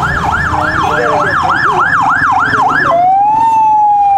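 Electronic siren on a fast yelp, rising and falling about three times a second. About three seconds in it switches to a slower wail: one rise, then a long falling tone.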